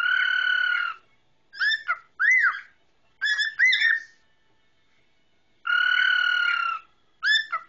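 Male cockatiel whistling its song: a long steady whistled note at the start and another about six seconds in, with groups of short rising-and-falling chirped notes between them.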